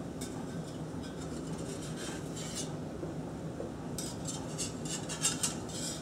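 Slotted metal spatula scraping and clinking against a cast-iron skillet while fried eggs are loosened to slide them out of the pan: a few strokes about two seconds in, then a quick run of scrapes from about four seconds on.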